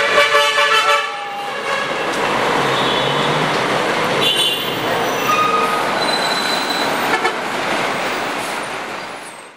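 City street ambience: a steady wash of traffic noise, with a vehicle horn honking in the first second and a few shorter horn toots later. It fades out near the end.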